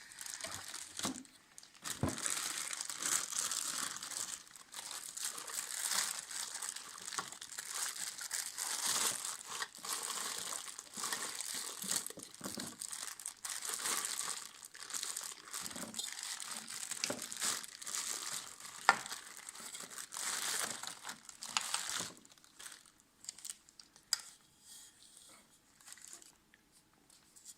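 Packaging crinkling and rustling as the lava lamp's parts are unwrapped by hand, continuous for about twenty seconds, then giving way to a few scattered light clicks and handling noises.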